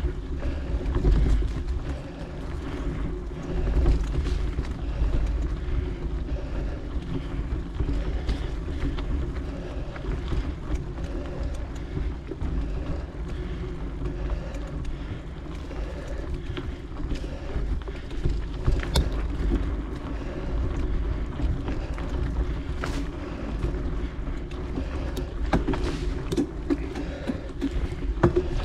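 Wind rushing over the microphone while a mountain bike rolls along a dirt singletrack, with steady tyre and drivetrain noise and scattered sharp clicks and rattles from the bike, more of them near the end.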